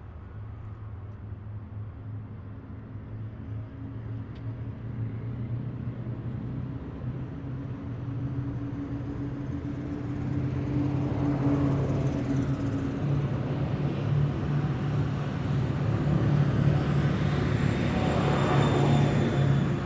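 Heavy military vehicles' engines running in a passing column, the rumble growing steadily louder as vehicles approach and go by, with a swell of engine and road noise over the second half.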